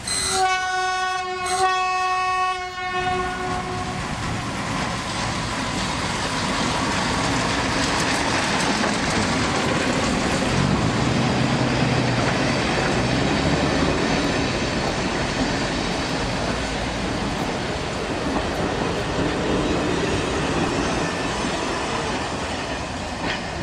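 Train horn blown twice, the second blast fading out, then the steady noise of the train running along the track.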